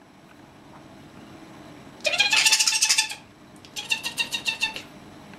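Pet European starling giving two bursts of rattling, clicking chatter, each about a second long; the second is a quick run of about ten clicks.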